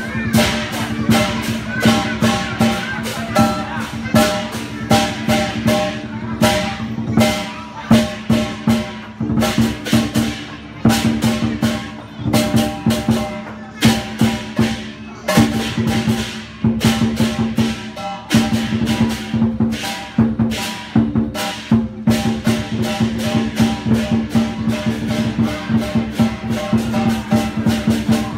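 Chinese dragon dance percussion: a drum beating with cymbals clashing in quick, uneven strokes over a steady ringing tone.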